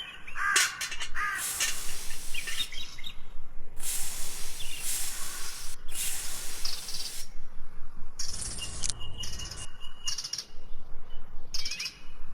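Bird-like chirps over patches of hissy noise, with a thin steady high tone partway through.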